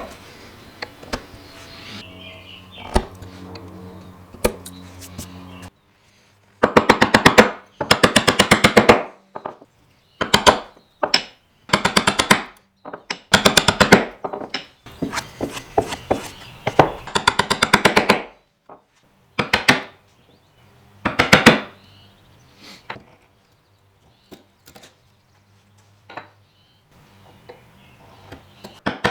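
Hand tool working walnut, heard as bursts of rapid sharp strikes or chatter on wood, about ten a second, each burst a second or two long with short pauses between. A low steady hum and a few single knocks come first, in the first few seconds.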